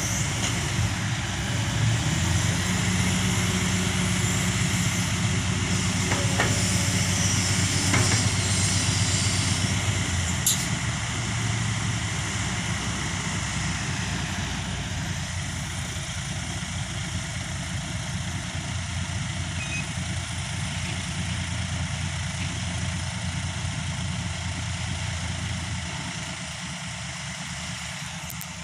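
Diesel dump truck engine running while its hydraulic hoist tips the bed up; louder for the first ten seconds or so, then easing to a lower, steady run, with a few short knocks along the way.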